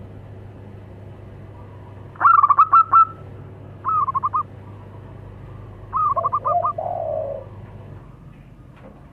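Zebra doves (perkutut) cooing back and forth: three short phrases of quick staccato notes, the last overlapped by a lower, drawn-out call.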